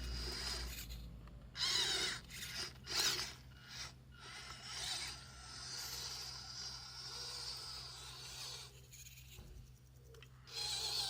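WPL C24 RC crawler truck's small electric motor and gearbox whirring in bursts as the throttle is worked on and off, with gritty scraping from the truck working through dirt and mud. It drops out briefly about a second in and again near the end.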